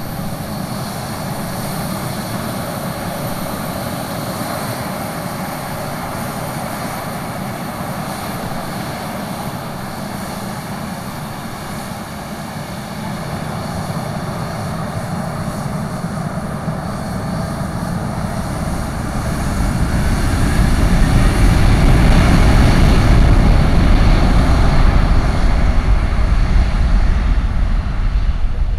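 Embraer 195 jet airliner's twin CF34 turbofan engines running on the runway and spooling up to takeoff thrust: a steady jet hum grows louder from about 13 seconds in with a faint rising whine, and a deep rumble takes over from about 20 seconds in as the takeoff roll begins.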